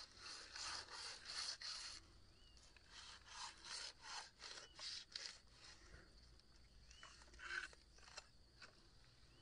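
Machete blade sawing into a ripe pineapple on the plant: a quick run of soft rasping strokes for about two seconds, then separate slicing strokes through the fruit's flesh and rind.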